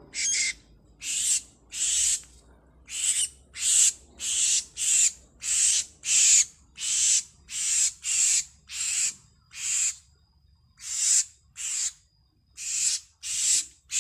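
A bird giving a long series of harsh, hissing rasps, about one and a half a second, with a short pause about two-thirds of the way through.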